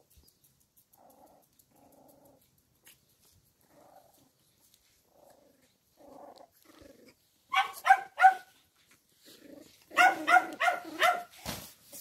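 Terrier puppies at play: faint play-growls through the first half, then a quick burst of three high-pitched yaps past the middle and four more shortly before the end.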